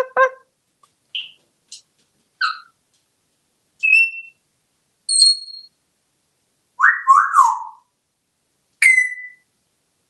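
African grey parrot giving a string of short, separate whistles and chirps, about seven in all, some clear and high, with a longer two-part call about seven seconds in.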